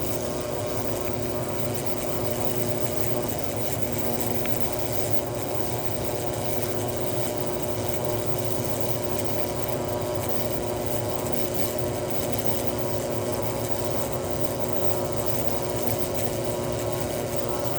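Ultrasonic cleaner running with a steady buzz, made of several held tones that shift slightly now and then.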